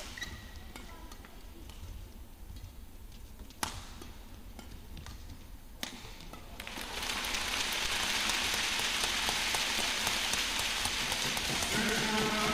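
Badminton rackets striking the shuttlecock during a rally: a few sharp hits a couple of seconds apart. Then, about two-thirds of the way in, steady crowd applause rises and carries on.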